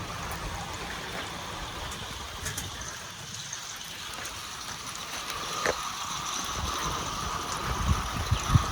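Light rain of a sun-shower falling: a soft, steady hiss of scattered drops. A steady higher hum joins about five and a half seconds in, and there are a few low bumps near the end.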